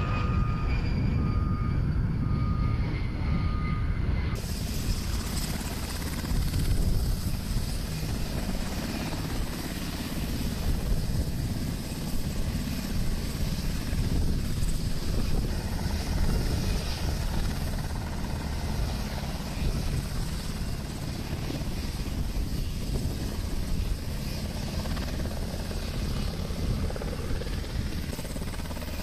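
An A-10C Thunderbolt II's turbofan engines whine overhead for the first few seconds, the tone falling in pitch. Then comes the steady, heavy rotor and turbine noise of an HH-60G Pave Hawk helicopter running on the ground.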